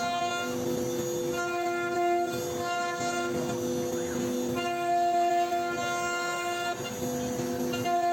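Background instrumental music made of held chords that change every second or two.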